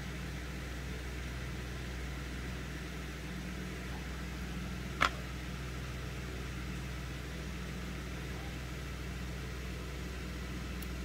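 Steady low mechanical hum with a hiss over it, broken by a single sharp click about five seconds in.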